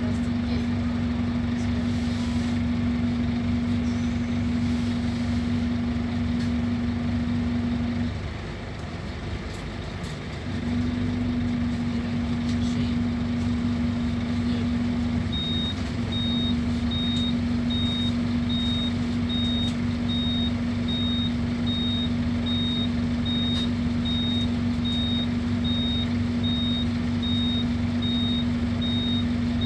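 Scania K280UB city bus running with a steady hum that drops out for a couple of seconds about eight seconds in. From about halfway, a high electronic beep repeats about twice a second.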